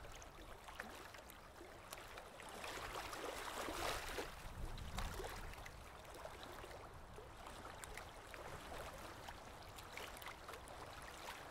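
Faint running water: a steady trickling wash with scattered small clicks, swelling a little around four seconds in.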